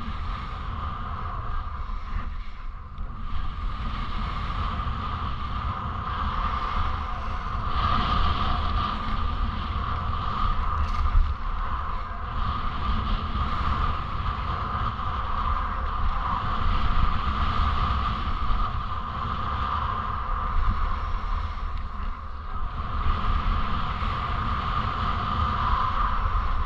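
Skis sliding and scraping over packed snow, a hiss that swells and eases with the turns, under a steady low rumble of wind buffeting the microphone at skiing speed.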